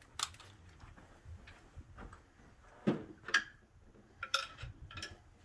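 A few separate light clicks and knocks of hand tools being handled, set down and picked up, between drilling and chiselling.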